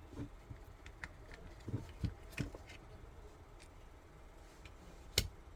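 Faint, scattered clicks and taps of small plastic headphone parts and wiring being handled and fitted back into the open ear-cup housing, with a few knocks together about two seconds in and one sharper click near the end.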